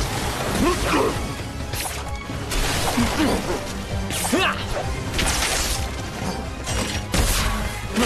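Cartoon fight sound effects over action music: a series of whooshes and impact hits, several sharp crashes spread through the scene.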